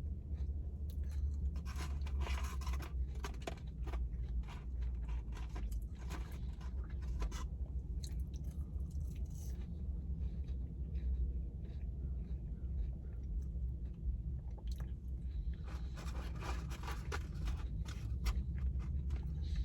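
A person chewing and crunching food close to the microphone, in spells about two, six to seven, and sixteen to eighteen seconds in, over a steady low hum.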